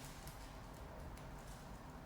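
Quiet room tone: a steady low hum with a faint hiss, and a few faint light clicks in the first second.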